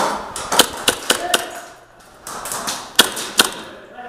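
KWA MP9 gas blowback airsoft submachine gun firing single shots: about seven sharp cracks in two strings, with a short pause about halfway.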